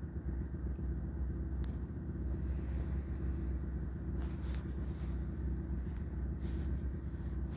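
Wind rumbling steadily on the microphone, with a couple of faint clicks.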